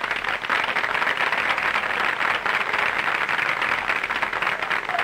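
Audience applauding steadily right after a marching band's piece ends.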